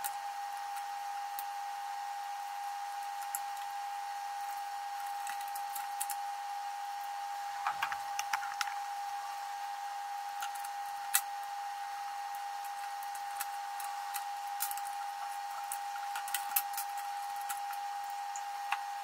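A steady high-pitched whine with scattered small clicks and taps of small drone parts and a screw being handled, a cluster of them about eight seconds in.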